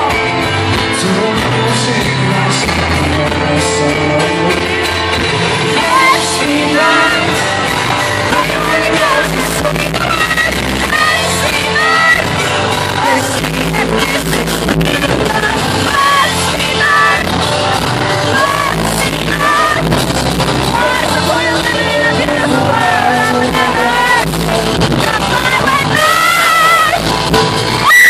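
Live pop song played loud in a concert hall: a singer's voice over band accompaniment, heard from the crowd through a phone's microphone.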